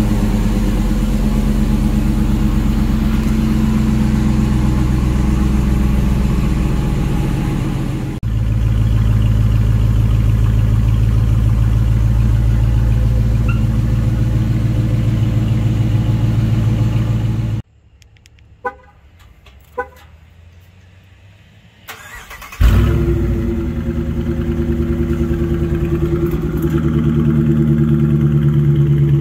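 A 2022 Dodge Challenger R/T's 5.7-litre HEMI V8 on its stock mufflers and resonators, running at a fast idle after a cold remote start. After a while the engine sound drops away, two short chirps are heard, and then the engine fires with a sudden loud flare and settles back into a fast cold idle.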